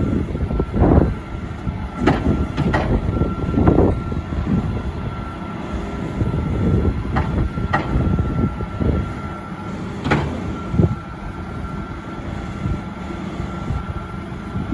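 Diesel engines of a JCB telehandler and tractor running steadily while the telehandler's grab bucket tips silage into a Peecon feed mixer wagon, with a few sharp metal knocks.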